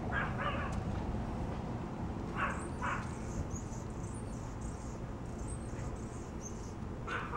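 A dog yips in short pairs, three times: near the start, about two and a half seconds in, and at the end. Faint high chirping sounds in between.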